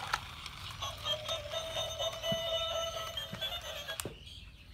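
Electronic tune of steady, beeping tones, cut off suddenly about four seconds in.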